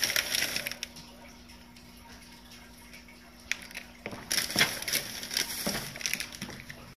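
Plastic wrapper of a protein bar crinkling and crackling as it is handled and opened, in two bouts with a quieter pause of about three seconds between.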